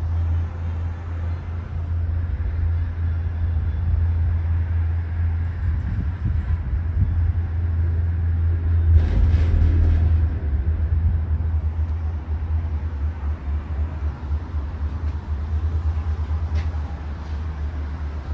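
Steady low rumble of a Disney Skyliner gondola cabin riding along its cable, heard from inside the cabin. It swells to a louder, noisier stretch about halfway through, and a few faint clicks come near the end.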